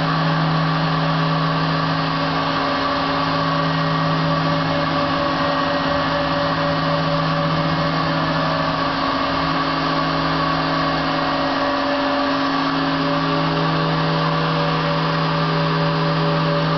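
Motionmaster 3-axis CNC router running under power: a steady motor hum with a whine, even throughout.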